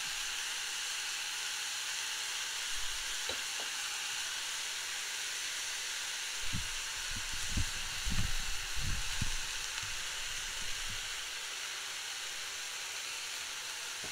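Chopped onion sizzling steadily in hot oil in a saucepan over high heat, as the onion's moisture cooks out as steam. A few low thuds come in the middle.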